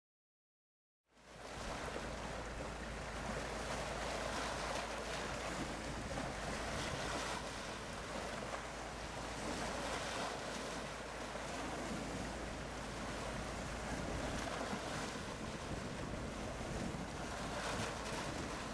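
Wind buffeting the microphone over choppy sea water, with waves splashing, beginning abruptly about a second in and then running steadily.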